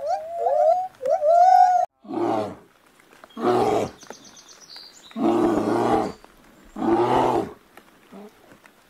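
A gibbon gives a quick run of rising and falling whooping calls that cut off about two seconds in. Then a bear growls in four deep, rough bursts, each half a second to a second long.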